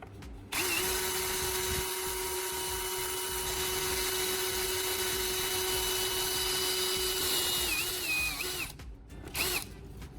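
A small motor runs at a steady high pitch for about seven seconds. Its pitch dips a few times before it stops, then it gives one short burst.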